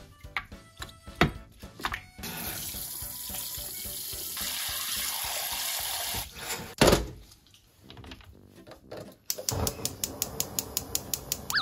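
Tap water running into a stainless steel pot of beef feet for a few seconds, then a single loud thump about seven seconds in. Near the end comes a fast, even run of clicks.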